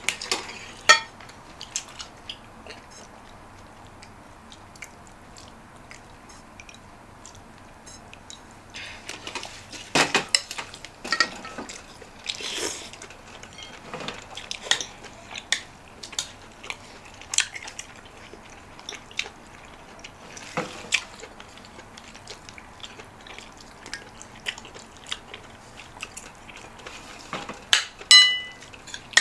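Eating at a table: a spoon and fork clicking against a bowl and plate now and then, with chewing between. Near the end comes a louder clink of metal on the dish that rings briefly.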